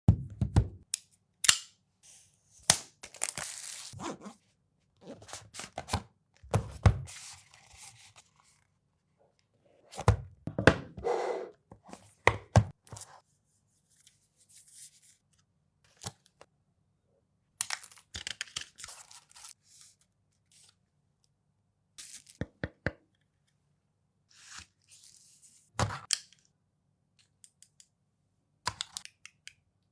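Phone packaging being unboxed by hand: bursts of tearing and crinkling with sharp clicks and thunks from the box and its contents, separated by near-silent pauses.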